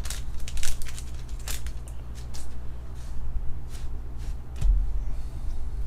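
Pokémon trading cards being slid and flicked through the hands one after another, giving short crisp rustles and snaps, more of them in the first couple of seconds. A steady low hum lies underneath.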